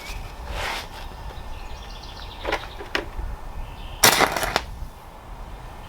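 Stick welder's flux-coated electrode tapped and scraped against the steel, failing to strike an arc. It makes a few short scratchy noises, the loudest lasting about half a second, a little past halfway. Flux covering the rod's tip is keeping the arc from starting.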